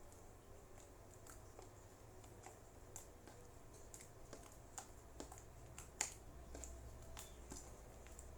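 Sticky homemade slime being kneaded and pulled by hand, giving faint, irregular small clicks and pops, the loudest about six seconds in.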